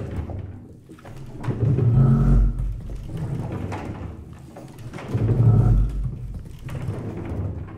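Deep rumbling from large wooden sound objects worked by performers, swelling twice, about two and five and a half seconds in, with a faint high tone at each peak.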